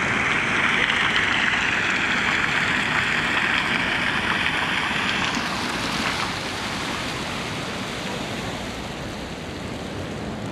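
A steady rushing noise like running or splashing water, louder and brighter for about the first five seconds, then softer and more even.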